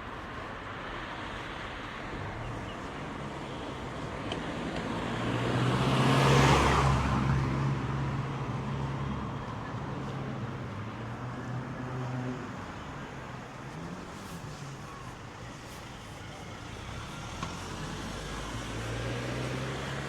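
Street traffic: a motor vehicle passes close by, its engine hum and road noise swelling to a peak about six seconds in and then fading. Another engine hum comes up near the end.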